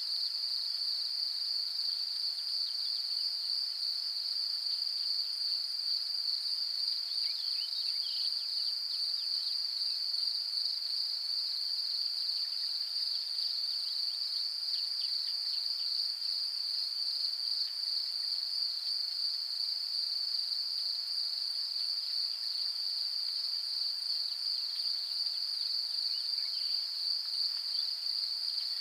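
Crickets chirring in a continuous, steady high-pitched trill that holds the same level throughout.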